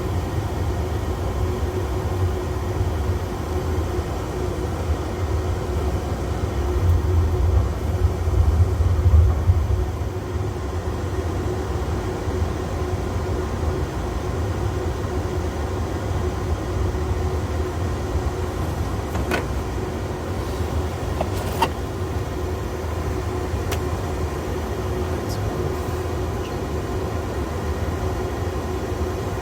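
Airbus A330 cockpit noise while taxiing: a steady low rumble with a steady hum, growing louder for a few seconds about seven seconds in. A few faint clicks come about two-thirds of the way through.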